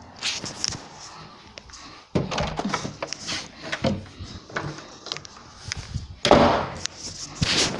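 Cats scrambling after a laser dot: irregular thumps, knocks and scuffles on the floor and furniture, with the loudest clatter about six seconds in.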